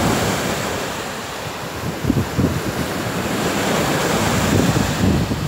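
Small sea waves breaking and washing up a sandy beach in a continuous rush of surf, with wind buffeting the microphone in irregular gusts.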